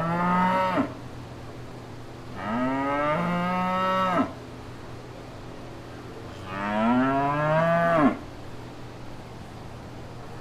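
Cattle mooing: three moos, the first already under way and ending within the first second, then two more of about two seconds each that start low, rise in pitch and cut off sharply. A steady low background runs between the calls.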